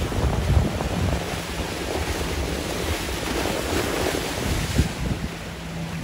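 Wind buffeting the microphone in uneven gusts over the steady rush of ocean surf.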